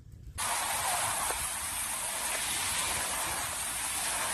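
Steady rushing of a swollen, fast-flowing flooded river in spate, starting suddenly about half a second in after a near-silent moment.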